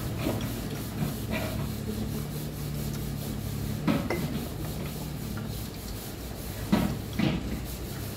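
A meal being eaten: bowls, spoons and chopsticks clink and scrape a few times in short pairs over a steady low hum.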